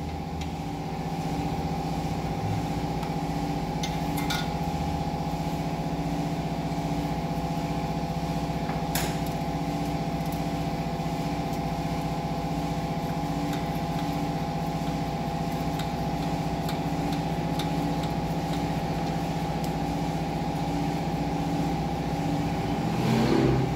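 A steady machine hum with several held tones, one of them pulsing, and a couple of faint metal clicks as a motorcycle exhaust pipe is handled and fitted.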